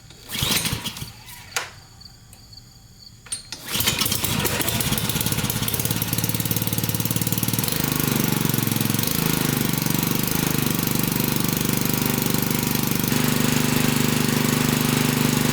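Pressure washer's Honda-type small gasoline engine being pull-started. A few short noises come first, then the engine catches about four seconds in and runs steadily. It starts on a carburetor just cleared of dried fuel gum with solvent.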